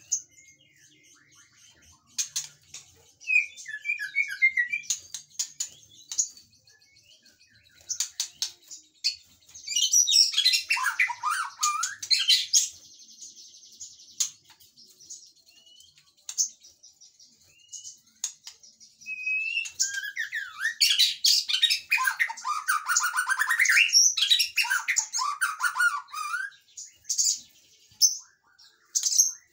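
White-rumped shama singing in bursts of rich, varied, fast-changing phrases separated by quieter gaps. The longest stretches of song come about ten seconds in and again from about twenty seconds in.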